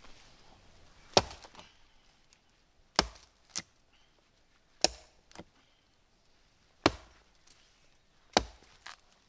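Axe chopping into the base of a dead, hollow balsam fir trunk: five sharp strikes about every one and a half to two seconds, some followed by a fainter knock.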